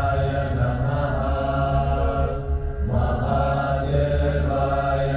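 Mantra chanting over a steady low drone in the background music; the chanted line breaks off briefly about two and a half seconds in, while the drone carries on.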